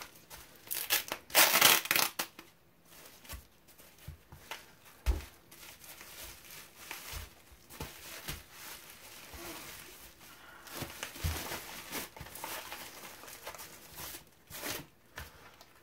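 Bubble wrap and a plastic sleeve crinkling and rustling as they are unwrapped by hand, with a loud burst of crackling about a second in. A few dull knocks come through the rustle.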